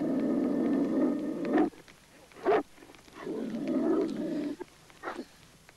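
Dog growling in two long rough stretches, each about a second and a half, with a few short sharp sounds between them.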